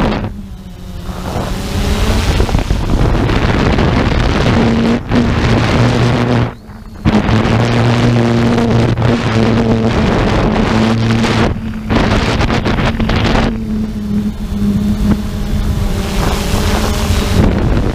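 A motor running at a steady speed with a low hum, under heavy wind noise on the microphone; the sound drops out briefly about six and a half seconds in.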